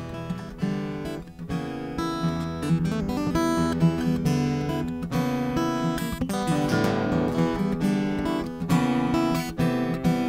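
Steel-string acoustic guitar strummed in a steady rhythm, chords ringing without a voice: an instrumental break in a folk song.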